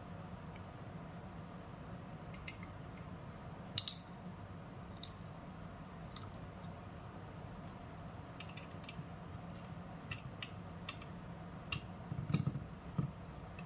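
Scattered small clicks and taps from hands handling mini PC hardware parts, over a steady low hum. There is a sharper click about four seconds in and a short cluster of knocks near the end.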